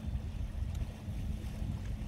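Wind buffeting the microphone in gusts over the steady rush of river water, with a low steady hum throughout.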